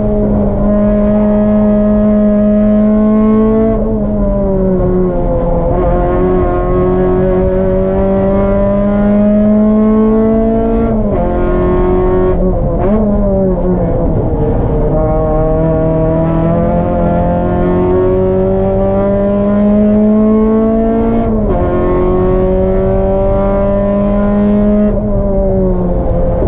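Race car engine running hard on track, its pitch climbing steadily and then dropping sharply at each gear change, several times over.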